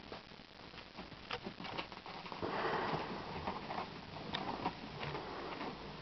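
Kittens scrambling over a fabric-covered loveseat: scattered light taps and scratches of claws on the upholstery, with a louder stretch of rustling about halfway through.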